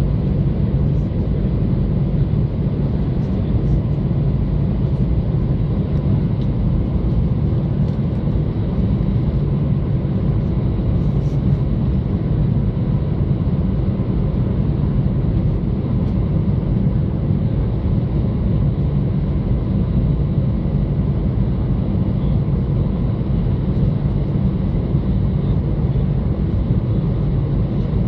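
Cabin sound of an Airbus A320 taxiing: a steady low rumble from its CFM56-5A1 engines at idle, with no build-up of thrust.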